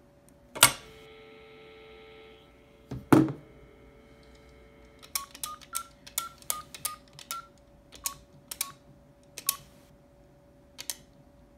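Stainless steel payphone handset lifted with a loud clunk, followed by a ringing tone that stops after about two seconds, then a thud. About a dozen keypad buttons are then pressed at an uneven quick pace, each giving a click and a short keypad beep as a number is dialled.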